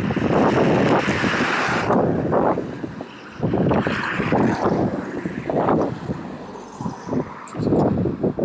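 Wind buffeting the microphone: loud, uneven rumbling gusts that swell and drop, easing off around three seconds in and again near six seconds before picking up.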